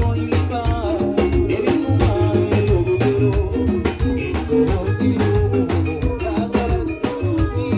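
Adungu music: plucked strings of the Ugandan arched harp playing a quick, busy melody over a deep bass line, with a steady percussion beat.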